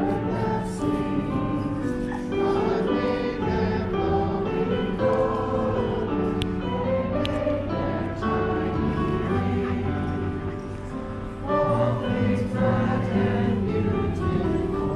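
A choir of voices singing a slow hymn in held notes. The singing dips briefly about eleven seconds in, then comes back in fuller.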